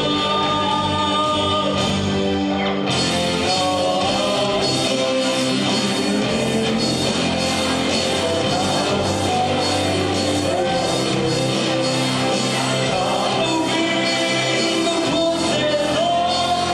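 Live band playing a rock-style song with a lead singer, over steady drums; the cymbals come in fully about three seconds in.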